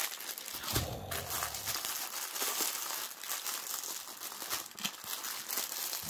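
Clear plastic packets of diamond-painting drills crinkling as they are handled, a continuous scrunching of thin plastic.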